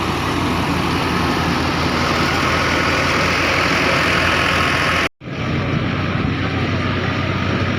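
Engine of heavy harvest machinery running steadily under load, with a dense hiss over the drone. It cuts out for an instant about five seconds in, then carries on with less hiss.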